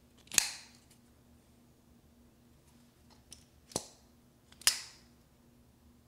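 Vosteed Raccoon crossbar-lock folding knife being flicked open and shut: three sharp snaps as the blade swings and the lock engages. The first comes about half a second in and the other two close together about a second apart near the middle, each of those two with a lighter click just before it.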